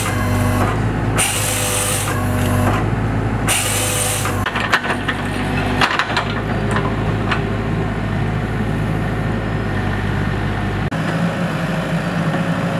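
Hydraulic excavator's diesel engine running steadily while it works a grapple saw attachment, with two short loud hissing bursts in the first few seconds and a few sharp cracks of wood about halfway through.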